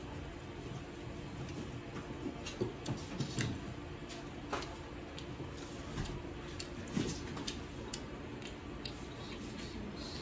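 Small, scattered clicks and cracks of boiled shrimp shell being peeled apart by hand.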